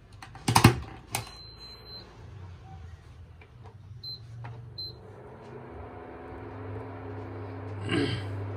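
Prestige induction cooktop being started: a couple of knocks, a long electronic beep, then two short button beeps, followed by a steady electrical hum that grows louder from about six seconds in as the unit runs. The cooktop has a fault that makes it heat very slowly.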